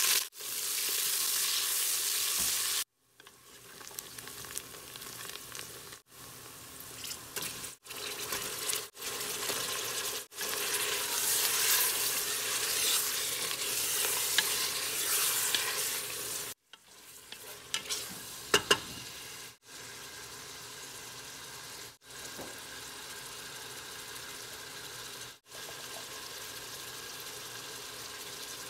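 Sliced onion and then lamb pieces frying in hot oil in a stainless steel pressure cooker, giving a steady sizzle that is loudest as the onion goes in and again mid-way while a wooden spoon stirs the meat. The sizzle is quieter in the last third, with a couple of sharp clicks about two-thirds in. It drops out briefly several times.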